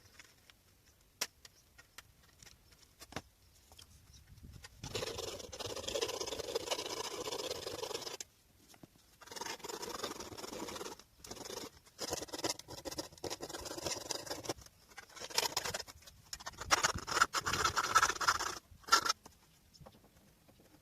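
Hand-worked abrading of the car's steel fender: a file, sandpaper or wire brush scraping the metal in several stretches of two to four seconds each, with short pauses between them. The first few seconds hold only a few scattered light clicks.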